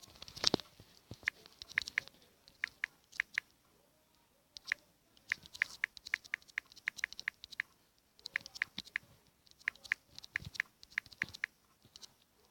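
Typing on a smartphone's on-screen keyboard: quick, light key clicks in runs of several a second, with short pauses between runs.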